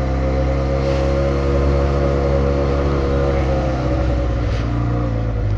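Benelli touring motorcycle's engine running steadily, heard through a microphone inside the rider's helmet; its pitch dips slightly about four seconds in.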